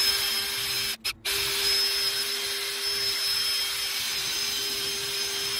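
Ryobi brushless cordless drill spinning a wire brush against a wheel hub, scrubbing the rust off: a steady motor whine over the rasp of wire bristles on metal. About a second in it cuts out twice in quick succession, then runs on evenly.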